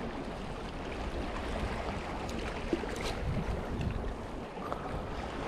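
Wind buffeting the microphone over the wash of sea water against a harbour seawall, steady throughout.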